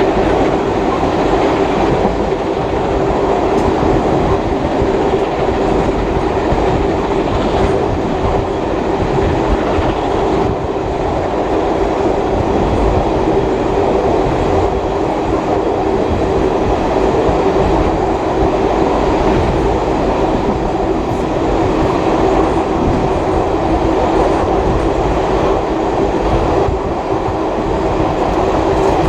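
Heritage passenger carriage running along the line behind steam locomotive 5917, heard from on board: a steady, loud rumble of wheels on track with a constant hum beneath it.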